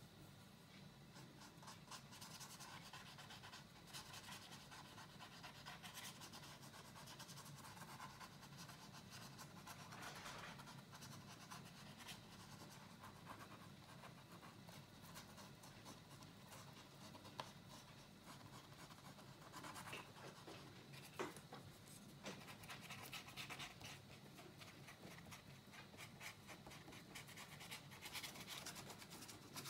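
Faint scratching of a thin paintbrush dragged across a dry, textured painted board in short, irregular sketching strokes, with a couple of sharper ticks a little past the middle.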